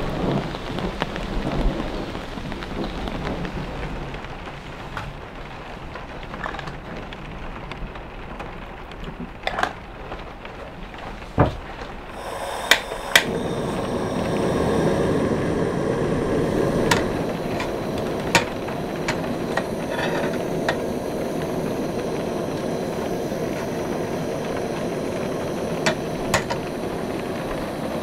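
Rain and distant thunder rumbling. About twelve seconds in, a couple of sharp clicks as a Nature Hike dual-burner camping gas stove is lit, then the burner's steady hiss under a pan of water, with a few light metal clinks of tongs against the pan.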